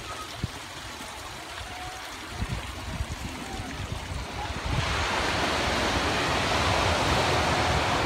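Water running down a small hillside stream, with a few soft knocks. About five seconds in it gives way to a louder, steady rush of waves breaking on a shore.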